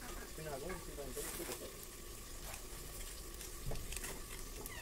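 Pork and potatoes sizzling in a lidded steel pan over a wood fire: a steady frying hiss with a few faint clicks.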